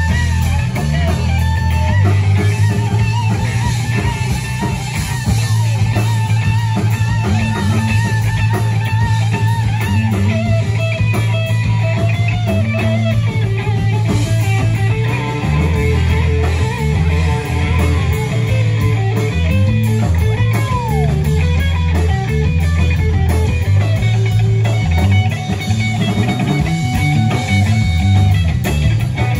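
Live heavy blues jam: electric guitar playing lead lines with bending notes over bass guitar and drum kit. A note slides down about 20 seconds in.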